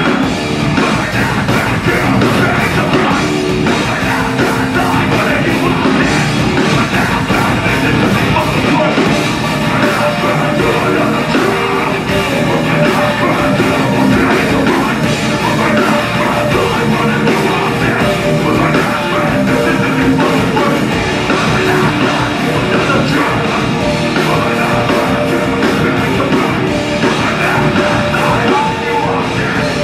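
Heavy metal band playing live and loud: distorted electric guitar, bass guitar, drum kit and keyboard in a dense, unbroken wall of sound.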